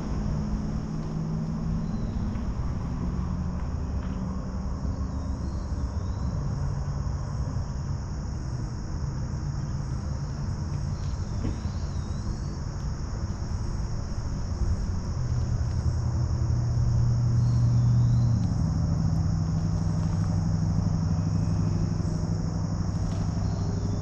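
A car engine running at low road speed, its low hum shifting in pitch a few times and swelling briefly about two-thirds of the way in, over a steady high chorus of crickets or other insects.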